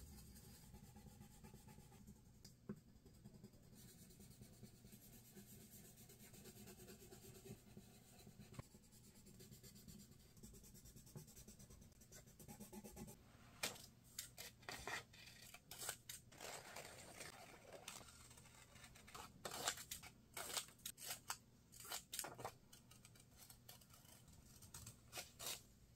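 Faint scratching of a pencil colouring on paper. About halfway through, scissors start snipping paper in a series of short, sharp cuts, cutting out the paper pieces.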